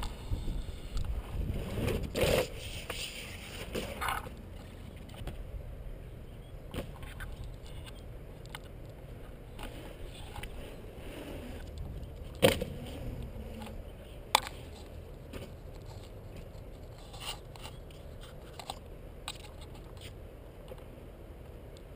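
Skateboard wheels rolling and scraping on concrete for the first few seconds, then scattered lighter clatters and two sharp knocks about twelve and fourteen seconds in, over a steady low rumble.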